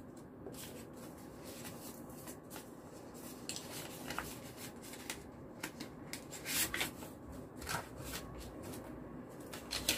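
Paper red envelopes and banknotes being handled: an envelope pulled open, the notes slid out and the paper laid down, in short scattered rustles and crinkles that come more often in the second half.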